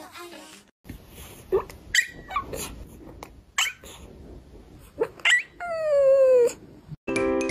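A pet's short, high yelping cries several times, then one long call that falls slowly in pitch near the end.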